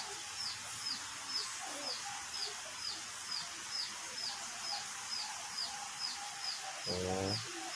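A bird's short, high chirp, repeated evenly about twice a second, over steady outdoor background hiss. A man's voice speaks briefly near the end.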